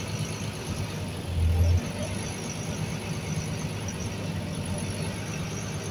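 Ferry boat's engine running with a steady low drone, with water rushing past the hull. A brief louder low rumble comes about a second and a half in.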